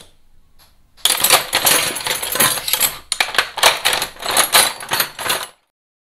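Logo intro sound effect: a rapid, irregular clatter of sharp, typewriter-like clicks. It starts about a second in and cuts off suddenly about five and a half seconds in.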